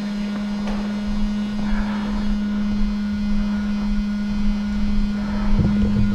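Small anti-fog fan built into airsoft goggles, buzzing steadily at one pitch close to the microphone, over a low rumble.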